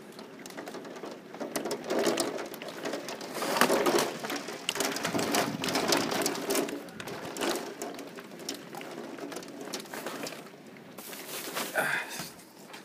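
Hailstones pattering and ticking irregularly against the house, with storm wind gusting.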